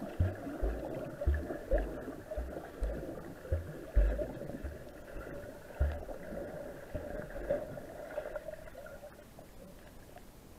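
Underwater river sound picked up by a camera held below the surface: a steady water hiss with irregular low, muffled thumps about twice a second, which thin out and fade over the last few seconds.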